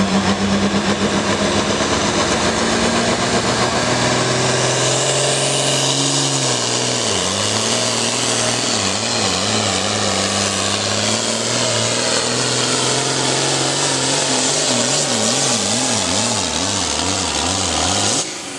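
Diesel pulling tractor's engine at full throttle, hauling a weight-transfer sled down the track. Its revs sag as the load builds, then waver up and down rapidly through the rest of the pull, and the sound drops off abruptly near the end.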